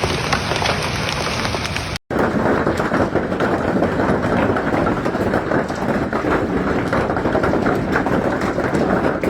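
Hailstorm noise: rain and hail pelting down as a dense patter of small hits over a steady roar, broken by a sudden drop-out about two seconds in.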